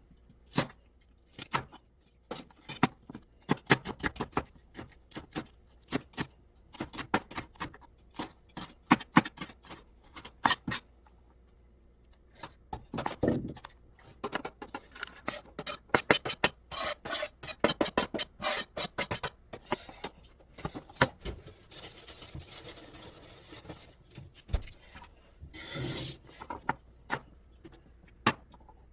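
Knife chopping food on a cutting board: runs of quick, sharp strokes with short pauses, and some softer scraping between them.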